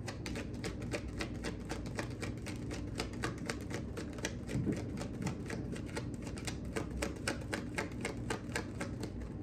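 A tarot deck being shuffled by hand: a quick, even run of crisp card clicks, about five a second.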